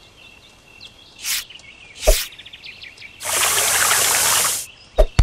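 Garden hose spraying water: a steady rush of spray lasting about a second and a half, starting past the middle. Before it come two quick swishes, the second with a low thud, and a short pop follows near the end, over faint chirping of birds and insects.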